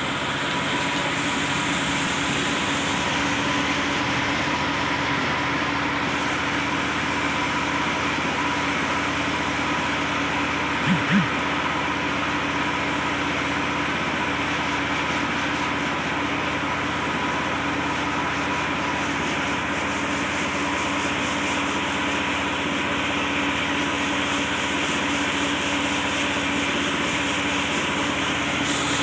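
A machine running steadily with a constant hum and hiss that does not change, broken only by two short blips about eleven seconds in.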